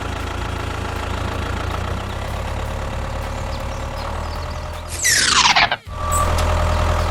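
A mini tractor's engine running steadily with a low, even hum. About five seconds in, a quick falling whoosh sweeps over it. The sound then drops out for a moment and the engine comes back louder.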